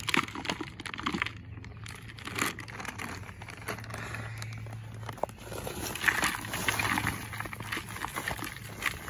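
Plastic bag of potting soil crinkling as it is handled, then potting soil pouring from it into a plastic plant pot with a rustling hiss in the second half.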